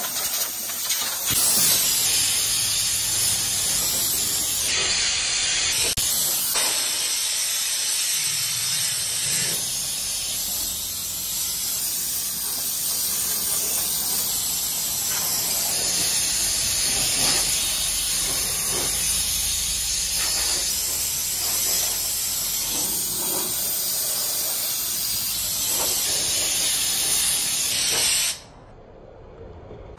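Compressed-air blow gun hissing loudly as it blows dust out of a car's engine bay, in long blasts with brief breaks between them. The air cuts off suddenly near the end.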